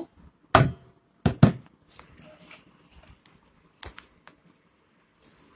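Knocks and clunks on a steel bowl as it is handled: three loud knocks in the first second and a half, lighter taps after, and one more sharp knock near four seconds.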